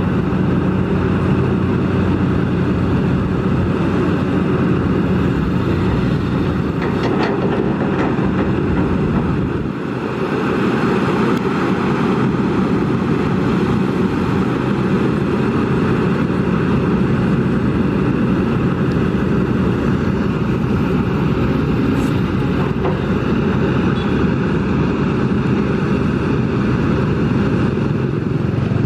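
Kobelco SK200 excavator's diesel engine running steadily under working load, with a brief drop in level about ten seconds in.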